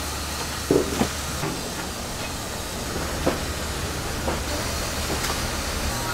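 Steady hiss of steam from a heated stall tray of braised pig's trotters (jokbal), with a few short knocks about a second in and again a little past three seconds.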